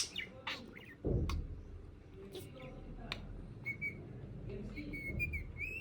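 Budgerigar calling: sharp single chirps, the loudest right at the start, and a low thump about a second in. Then a quieter run of short, warbling whistled notes in the last two seconds.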